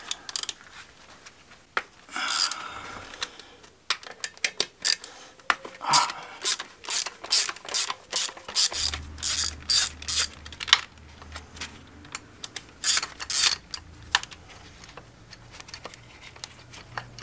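Hand ratchet clicking in quick runs of short strokes as hex bolts are backed out inside a gearbox bell housing.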